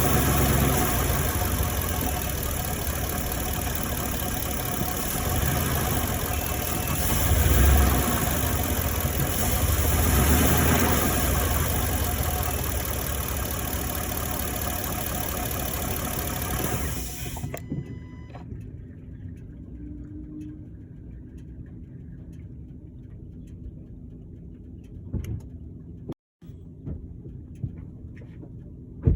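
A 2018 Ford F-150's 5.0-litre V8 running, an engine its owner reports as knocking. It swells louder a couple of times, then stops abruptly about two-thirds of the way in. After that only a low hum remains, with a few small clicks and a thump.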